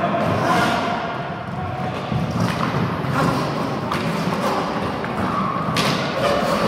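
Roller hockey in play: roller skate wheels rumbling on the rink floor, with several sharp knocks of sticks, ball or boards a second or two apart and faint voices behind.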